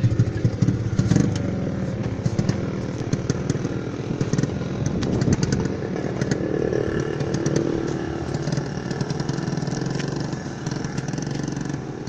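Small motorcycle engine of a sidecar tricycle running, growing fainter in the last few seconds as the tricycle pulls away.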